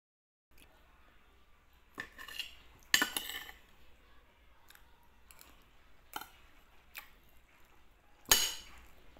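Metal spoon and fork clinking and scraping on a plate while eating, in scattered short strikes, the loudest about three seconds in and again near the end.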